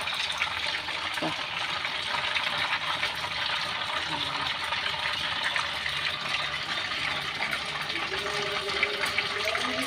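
Chicken pieces deep-frying in hot oil, sizzling steadily with many small crackles.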